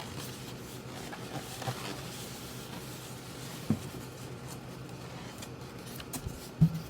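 Hands handling and adjusting a small Sunbeam sewing machine: light rubbing and scraping with a few small knocks, the loudest about six and a half seconds in, over a low steady hum.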